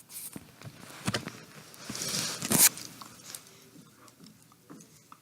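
A dog nibbling and licking, with small wet clicks and rustling, while being tickled. The loudest rustle comes about two and a half seconds in.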